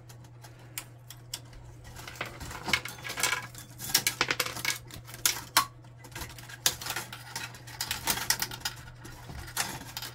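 Plastic parts of an HP ENVY 5055 inkjet printer's cartridge carrier assembly clicking, tapping and rattling irregularly as they are worked loose by hand.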